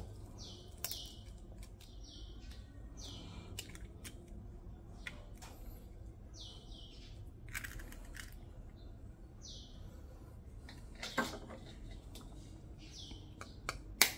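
Chicken eggshells being cracked and broken open over a bowl: a few sharp knocks and cracks, the loudest about eleven seconds in and another near the end. Small birds chirp over and over in the background, a short falling chirp every second or so.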